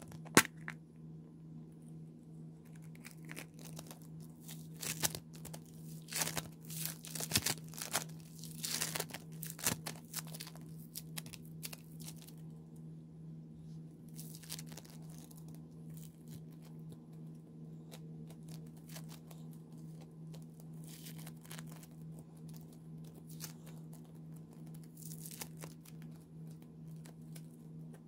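Slime being stretched and squished by hand, giving irregular clusters of crackling, tearing sounds that are busiest in the first half and come in shorter groups later. A steady low hum runs underneath.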